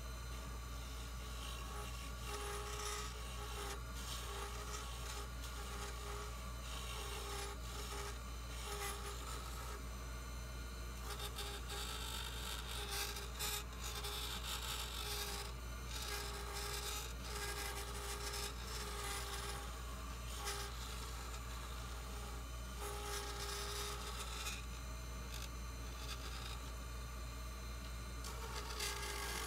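Wood lathe spinning a bloodwood pen blank while a hand-held turning tool cuts it: a rasping scrape of the tool on the wood that comes and goes with each pass, over a steady low hum of the running machine.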